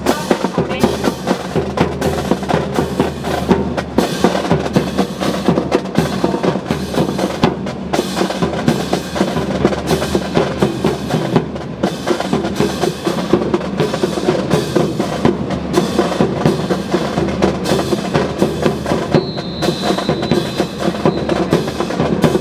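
Marching drum cadence on snare and bass drums from a naval drill team, with sharp wooden clacks of rifle drill falling in time with the beat.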